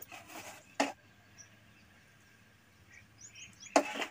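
Plastic salt packet crinkling and a sharp click as it is handled and poured, the loudest crinkle near the end, with a few faint bird chirps in the quiet between.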